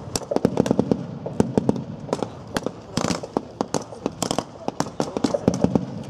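Small-arms and vehicle-mounted machine-gun fire with blank rounds from several weapons at once: irregular sharp cracks, several a second, some bunched in short bursts.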